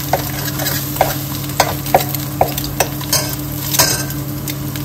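Egg frying in hot oil in a metal wok, sizzling steadily, while a metal utensil scrapes and taps against the pan in repeated quick strokes, about two a second, breaking the egg into small crumbs.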